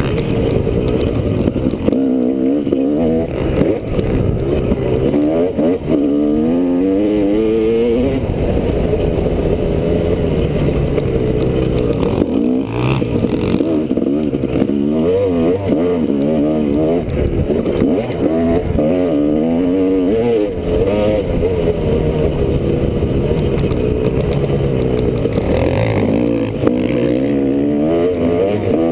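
Honda CR250R two-stroke dirt bike engine revving up and falling back over and over as it is ridden through the gears on a trail, heard from a helmet camera.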